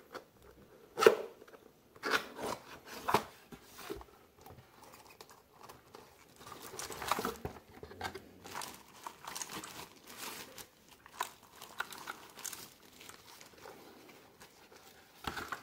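Packaging and a mechanical keyboard being handled: irregular crinkling and rustling, with scattered knocks and clicks.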